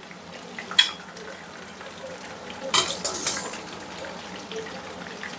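Stainless steel skimmer clinking and scraping against a steel pot as boiled broccoli is scooped out, with a sharp clink about a second in and more around three seconds in. Under it, the steady low sizzle of chicken frying in a wok.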